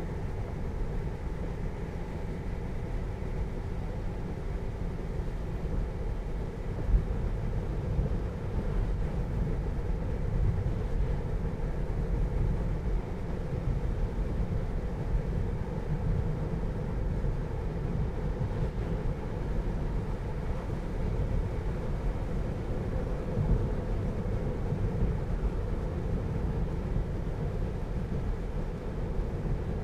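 Steady road and tyre noise inside the cabin of a moving 2020 Tesla Model 3, an electric car with no engine sound, with a couple of small bumps, one about 7 seconds in and one near 23 seconds.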